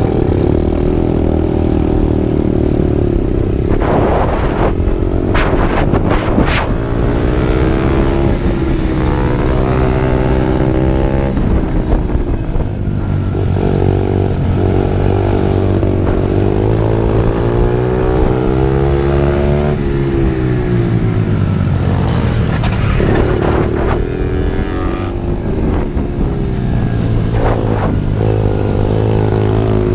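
Mini pit bike engine being ridden hard around a tight track, revving up and dropping back again and again as the rider accelerates out of corners and backs off into the next, heard from on board.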